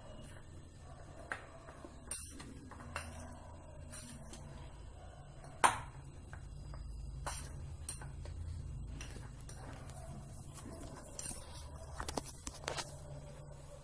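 A spoon clinking and scraping against a bowl while stirring a dry, crumbly mawa-and-sugar filling: scattered light clicks, one sharper clink about five and a half seconds in, and a few quick clinks near the end. A faint low hum runs underneath.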